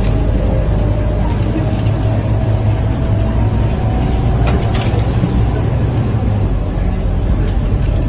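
Scania K230UB Euro V diesel city bus driving, heard from inside the passenger cabin: a loud, steady low rumble with a faint engine whine above it and a couple of faint clicks about halfway through.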